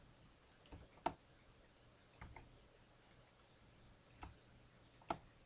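A few faint, scattered clicks from a computer mouse and keyboard, about five in all, over a near-silent room background.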